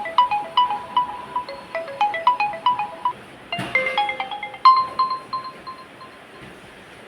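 OPPO A3s phone ringtones: a bright melody of quick repeating chime-like notes that cuts off with a click about three and a half seconds in, and the next ringtone starts straight after, a few ringing notes that die away near the end.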